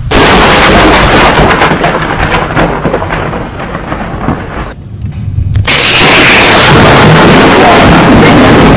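Close thunderclap that breaks in suddenly and rumbles, fading over about four and a half seconds. About five and a half seconds in, a second loud thunderclap starts and rolls on.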